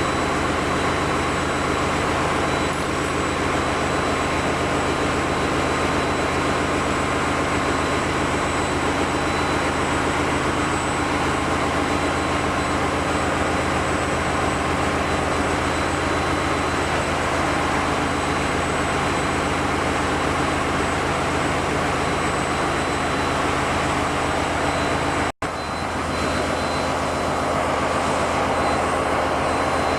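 Steady engine-room din of running Wärtsilä-type diesel generator engines, an even, loud machinery hum with several steady tones in it. It cuts out for an instant about 25 seconds in.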